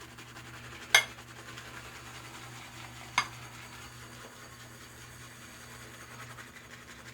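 Shaving brush working soap into lather in a copper lathering bowl: a soft, steady swishing with two sharp clinks of the brush against the metal bowl, about a second in and about three seconds in.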